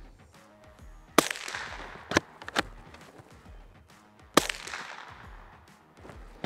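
Two suppressed .22 LR rifle shots from a Hammerli Arms Force B1 straight-pull rifle, about three seconds apart, each a sharp crack with a short echo; two quick clacks of the straight-pull bolt being run back and forward follow the first shot. Background music with a steady beat underneath.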